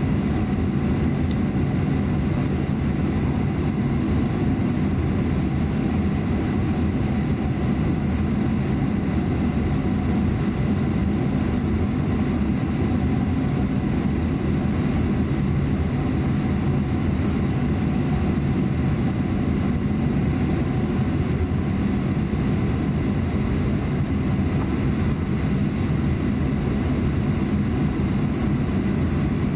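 Cabin sound of a Boeing 737-900 taxiing, its CFM56-7B turbofan engines running at taxi power: a steady low drone with a thin, steady high whine above it.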